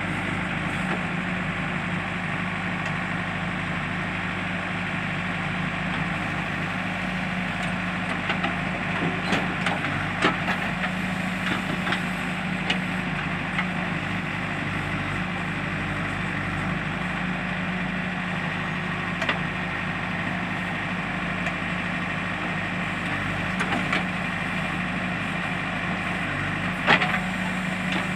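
JCB backhoe loader's diesel engine running steadily, with scattered knocks and clatters over it, the loudest near the end.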